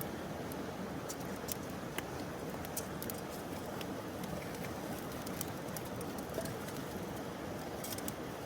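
Wood campfire crackling: irregular sharp pops and snaps over a steady low rush of burning.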